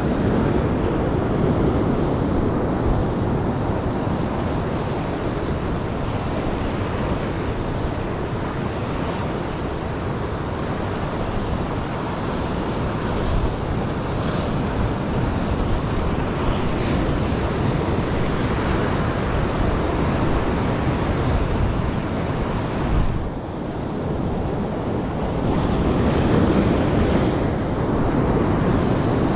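Ocean swell washing over and breaking on coastal rocks, a steady rush of surf that swells louder near the end, with wind buffeting the microphone.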